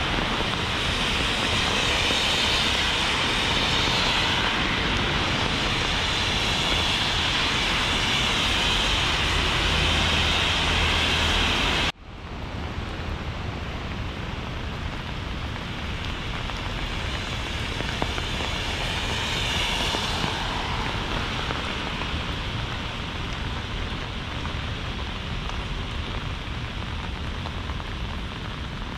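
Steady heavy rain with a louder, even noise over it for about the first twelve seconds, which ends in an abrupt cut at about twelve seconds. Quieter, steady rain runs on after the cut.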